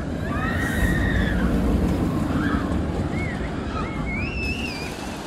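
Steel roller coaster train rumbling along its track, with riders' distant screams rising and falling over it, several times.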